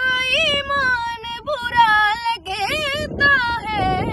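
A boy's high solo voice singing a manqabat, a devotional poem in praise of Imam Ali. He holds long notes that bend and ornament up and down, phrase after phrase. A low rumbling noise lies beneath, stronger near the end.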